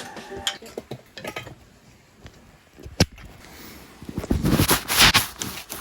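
Metal hand tools and engine parts clinking as they are handled, with one sharp click about three seconds in and a louder clattering stretch about four seconds in.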